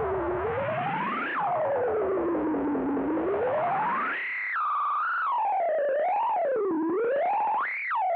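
Altai EC-500 analog bucket-brigade delay self-oscillating: its feedback tone howls and swoops in pitch as the delay time is swept, with a quick rise, a long slow fall, then several faster up-and-down sweeps.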